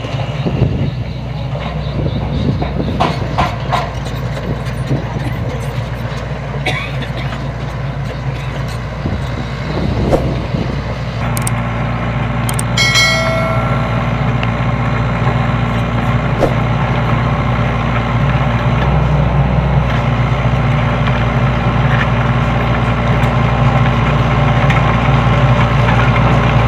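SANY SY75C mini excavator's diesel engine running steadily under working load, growing louder about halfway through, with scattered clanks and knocks in the first part and a brief high-pitched whine about halfway.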